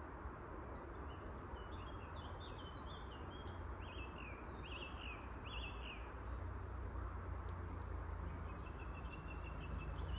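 Steady rush of a small stream's flowing water, with songbirds chirping in short, repeated phrases over it.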